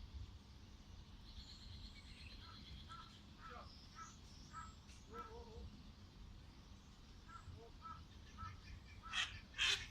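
Cranes calling: a run of short, repeated calls, then louder, harsh calls near the end.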